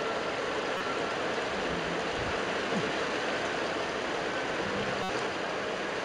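Steady rain falling, an even hiss that holds the same level throughout.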